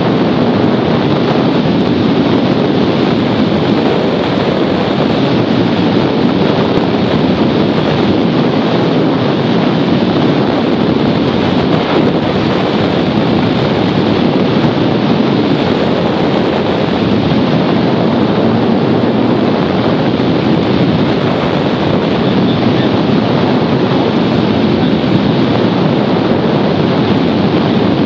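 Steady, loud wind rushing over the microphone, an even roar with no change throughout.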